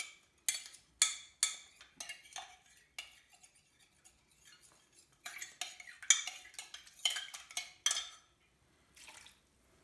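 Metal cutlery clinking and scraping against a glass jug while gravy powder and flour are stirred into liquid for a thickener. Irregular sharp clinks, with a busier stretch of quick stirring about five to eight seconds in.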